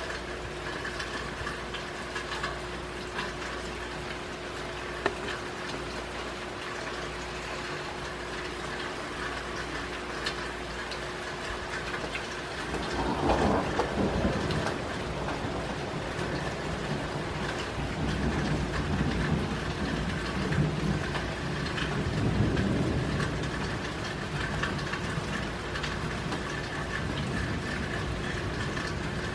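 Steady rain falling, with a low rumble of thunder swelling up about halfway through and rolling on in waves for several seconds.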